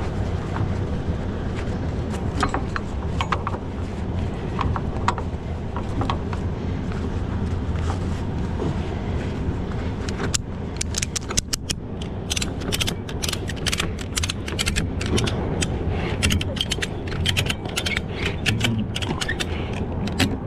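Flatbed strap winch being ratcheted down with a winch bar: a few scattered clicks, then from about halfway a long run of rapid pawl clicks as the strap is tightened over the load, over a steady low rumble.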